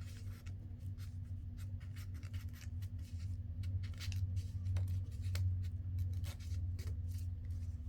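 Paper and card being handled: light rustles, taps and slides of paper as a tag is put into a paper pocket, over a steady low hum.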